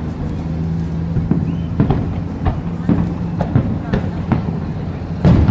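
Display fireworks going off in a series of separate bangs over crowd chatter, with a louder burst near the end.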